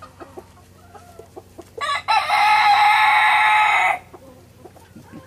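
A rooster crowing once: a single loud call of about two seconds, starting a little under two seconds in, with a short first note and then a long held note. Soft chicken clucking and small clicks sound before and after it.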